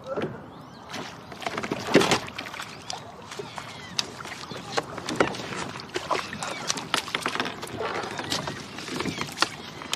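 Irregular knocks, clicks and rustles of a rod, landing net and gear against a kayak while a hooked perch is netted, with water noise underneath. The knocks come several times a second and vary in loudness, the loudest about two seconds in.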